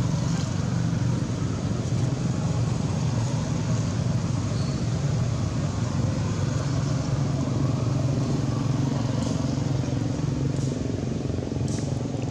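Steady low hum of an engine running, unchanging throughout, with a few faint ticks near the end.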